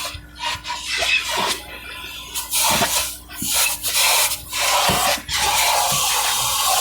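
Vacuum cleaner running, a rushing air noise that swells and drops in uneven surges as the nozzle works, over a steady low motor hum.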